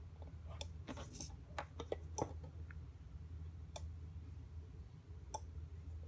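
Scattered sharp clicks, about eight of them, uneven in spacing, from a homemade dishwasher controller during its hardware test, over a low steady hum.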